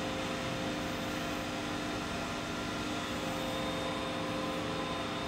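Steady machine hum and hiss with several held tones, from the public aquarium's pumps and tank-filtration equipment.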